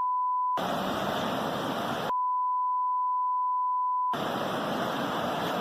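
Two censor bleeps: a steady, pure tone near 1 kHz that completely replaces the audio, the first ending about half a second in and the second lasting about two seconds from around 2 s in. Between and after them is a steady rushing noise of floodwater.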